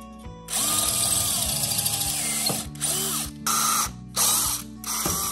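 Power drill boring a 5/32-inch hole through a steel Willys Jeep windshield frame, run in five bursts: the first about two seconds long, the rest short. The motor's pitch rises and falls as each burst starts and stops.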